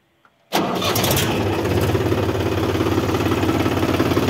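Mahindra 275 DI XP Plus tractor's three-cylinder diesel engine starting: it catches suddenly about half a second in and settles into a steady idle. This is its normal sound through the stock silencer.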